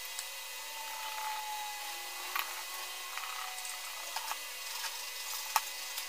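A few light clicks and knocks as hand tools and an opened computer power supply are handled and set down on a workbench, over a steady hiss; the sharpest knock comes about five and a half seconds in.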